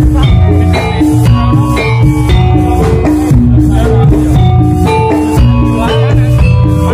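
Javanese gamelan music for a jathilan dance: short metallophone notes stepping through a melody over a steady drum beat and a deep bass, with a rattling percussion layer.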